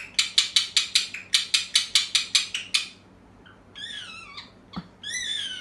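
Pet parrot singing: a fast rhythmic run of sharp chattering notes, about five a second, that stops about three seconds in, then two falling, warbling whistled calls.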